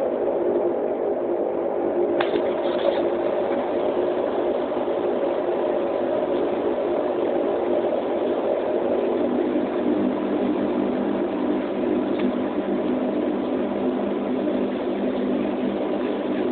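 Turboprop airliner's engines running steadily, heard inside the passenger cabin as a constant hum with a faint steady whine; the engine note shifts lower about nine seconds in. A couple of brief clicks come about two seconds in.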